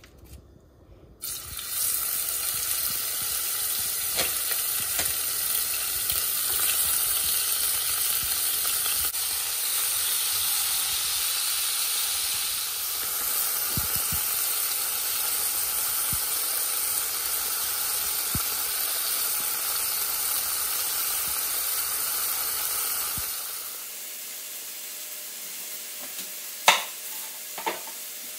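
Chunks of beef searing in hot oil in a pan: a loud, steady sizzle that starts suddenly about a second in, with a few faint clicks of tongs turning the meat. The sizzle cuts off near the end, followed by two sharp knife knocks on a wooden cutting board.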